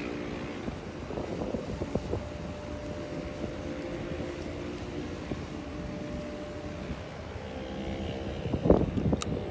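An engine running steadily, its drone holding an even pitch, with a few sharp knocks near the end.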